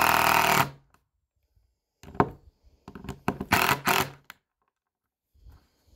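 Cordless drill driving a 3-inch deck screw into rough-cut lumber, its motor running steadily and stopping under a second in as the screw seats. After about a second of quiet, a cluster of short knocks and handling sounds follows.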